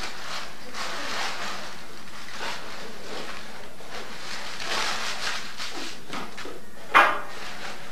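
Gift wrap and packaging rustling as a Christmas present is handled and unwrapped, with a single short, sharp sound about seven seconds in, the loudest moment.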